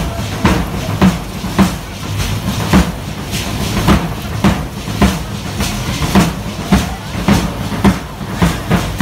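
Matachines dance rhythm: a drum beating steadily about twice a second, with hand rattles and the dancers' fringed skirts clattering in time.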